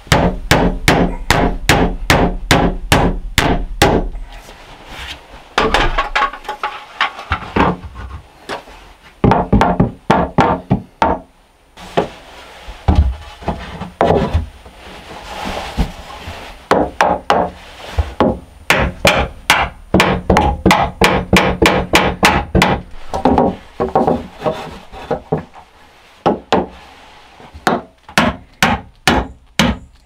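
Hammer driving nails into cedar shelf boards: runs of quick, sharp blows, about three a second, with short pauses between runs.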